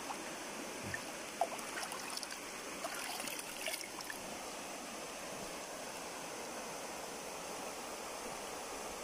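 Shallow river rushing over rocks, a steady hiss of flowing water, the river running high after three days of rain. A few light splashes come in the first four seconds.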